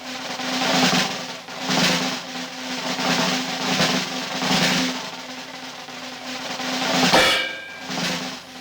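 Percussive cartoon music: snare drum rolls swelling about once a second over a steady low note, with a sharp hit about seven seconds in.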